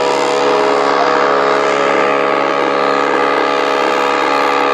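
Ship's horn sounding one long, steady blast, a loud chord of several blended tones.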